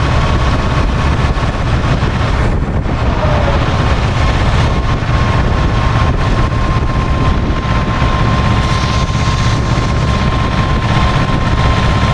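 A SAME tractor's diesel engine running steadily while the tractor drives along, with a thin, steady high whine carried along with it.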